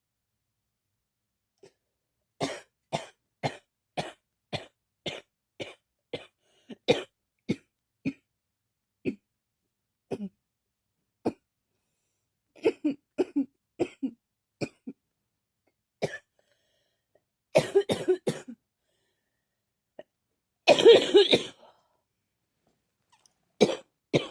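A person coughing: a quick series of short coughs about two a second, then scattered single coughs and small clusters, with a louder, longer coughing burst near the end.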